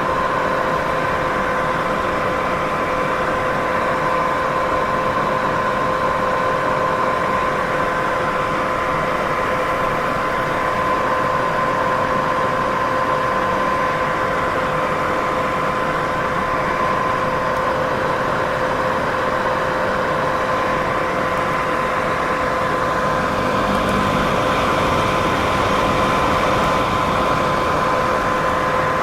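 Steady white noise for sleep: an even, unbroken rushing hiss with a constant hum at two pitches running through it. Its tone shifts slightly about 24 seconds in.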